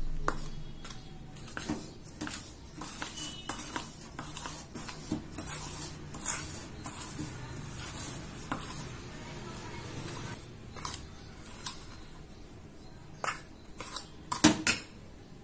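A metal spoon scraping and clinking against a stainless steel bowl as flour is mixed into creamed ghee and sugar. The taps come irregularly, with a few louder clinks near the end.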